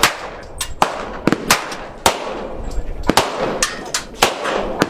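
Gunfire from several shooters on an outdoor range: about a dozen single shots at uneven intervals, some close together, each with a short echo.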